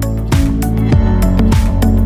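Background music with a steady beat, held tones and deep bass.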